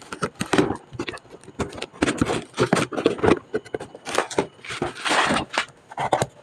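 Cardboard boxes and packaged goods being handled and unpacked by hand: irregular scraping, rustling and sharp knocks as items are pulled out and set down.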